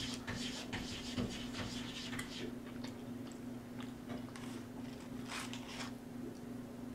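Close-miked chewing of a mouthful of burger: soft wet clicks and crunches, dense in the first couple of seconds and again about five seconds in. A steady low hum runs underneath.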